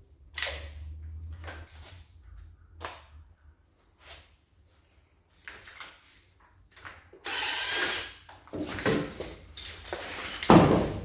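Tools and parts being worked on an engine during teardown: scattered knocks and rattles, a harsh rushing stretch about seven seconds in, and one loud metallic clunk near the end.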